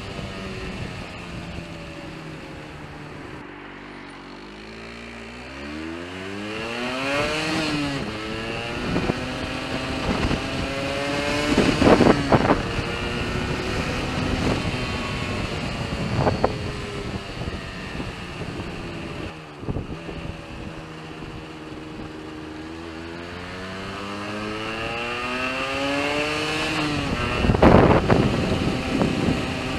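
Yamaha RD125LC YPVS single-cylinder two-stroke engine climbing in revs twice, breaking up into crackling splutters and misfires, loudest about twelve seconds in and again near the end. The sound is the misfire fault under investigation.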